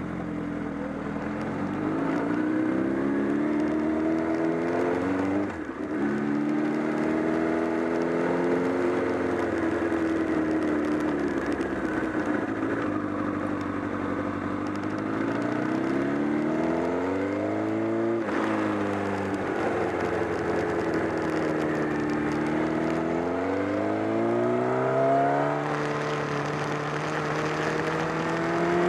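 Honda CBR1000RR inline-four engine revving up and down as the bike is ridden, its pitch climbing and falling in long sweeps and breaking off sharply twice. The owner reports a flapping (batabata) noise from near the engine that grew stronger, with a loss of torque.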